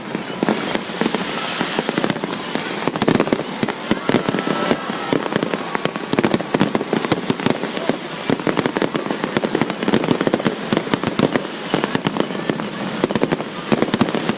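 Fireworks display in full barrage: a dense stream of rapid, overlapping bangs and crackling bursts with no let-up.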